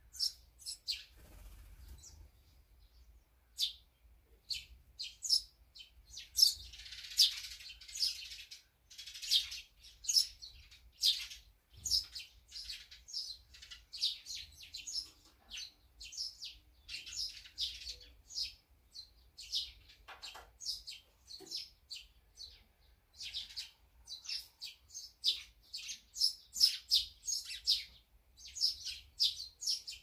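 Small songbirds chirping busily: a quick string of short, high chirps and calls, some overlapping, with a few louder ones.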